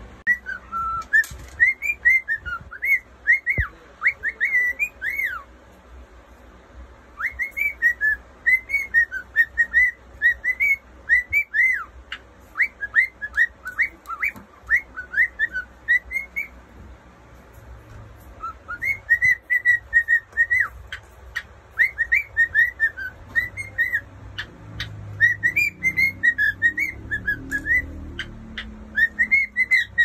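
A cockatiel whistling at its reflection in a mirror: runs of short, quick whistled notes that swoop up and down, in phrases broken by pauses about six seconds in and again around seventeen seconds.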